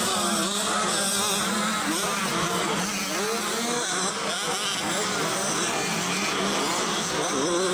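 Several 65cc two-stroke motocross bikes racing, their small engines buzzing and revving up and down in pitch.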